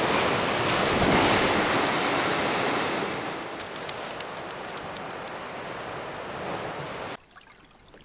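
Sea waves washing, a steady rushing hiss that drops quieter about three seconds in and cuts off suddenly near the end.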